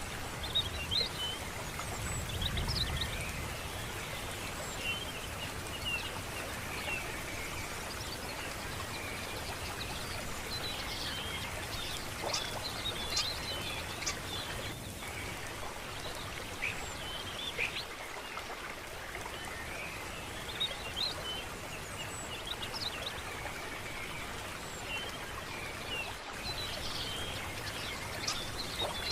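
Birds chirping in many short calls throughout, over a steady rushing background like running water, with a brief low rumble about two seconds in.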